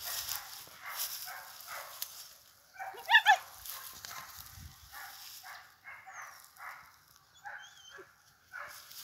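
Hunting dog giving two quick, sharp barks about three seconds in, over the regular swish of footsteps through dry grass.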